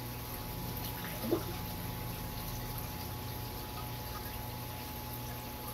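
Steady water noise and a constant hum from the aquarium's filtration pumps. About a second in, one brief sound rises in pitch.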